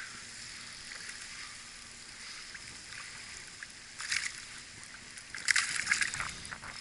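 Hooked bass splashing and thrashing at the water's surface, in a short burst about four seconds in and a longer one around five and a half to six seconds, while being reeled in on a wacky rig.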